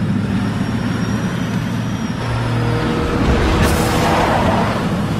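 Semi-truck and car engines running at highway speed with road noise, and a short hiss about three and a half seconds in.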